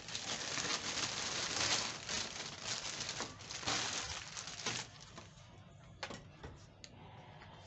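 Clear plastic wrapping bag crinkling and rustling as a power cord is pulled out of it, stopping about five seconds in, followed by a few light knocks as the pressure washer is handled on a concrete floor.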